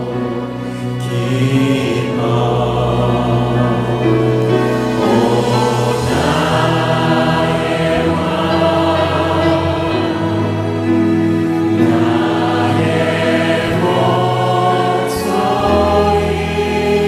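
Worship music: a church choir and a male lead singer singing a Korean praise song together, with sustained sung notes.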